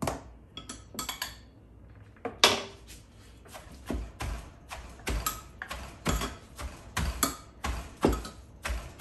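Wooden pestle pounding papaya salad in a clay mortar, each blow a dull thud, coming steadily about once or twice a second from a few seconds in. The spoon in her other hand clicks against the mortar between blows, and a few lighter clinks come in the first second or so.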